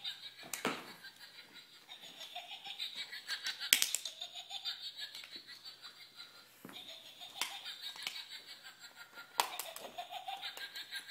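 Vizsla making its breathy, laugh-like huffing and panting, with a few short low whine-like sounds. Three sharp thumps break in, the loudest about four seconds in.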